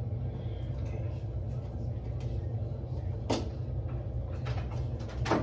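Steady low hum, with two short knocks: one a little past halfway and one near the end.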